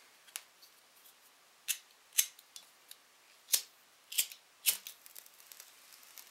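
Half a dozen sharp clicks and light metallic clinks, irregularly spaced, as an ethanol (spirit) lamp is uncapped and lit with a handheld lighter, struck until the wick catches.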